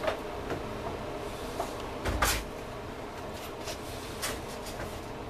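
Light clicks and knocks of hands handling parts inside the opened metal chassis of a welding inverter, with one louder knock and thud about two seconds in.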